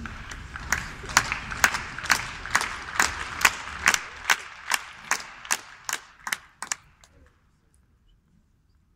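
Arena crowd at a tennis match clapping in unison, a steady beat of about two claps a second over a murmur of spectators, fading and stopping about seven seconds in as the server gets ready to serve.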